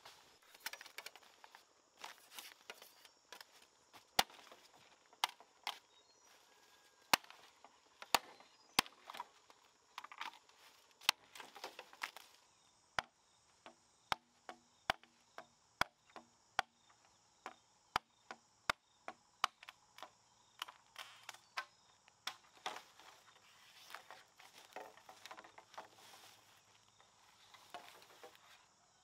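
A blade chopping green bamboo: a long run of sharp, short chops, uneven at first, then a steady stretch of about one and a half a second in the middle, with rustling of bamboo stems and dry leaves between strokes.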